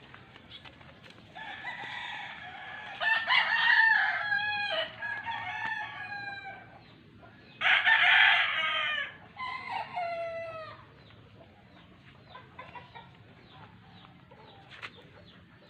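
Rooster crowing twice, two long crows that fall in pitch at the end, the first about a second and a half in and the second about eight seconds in.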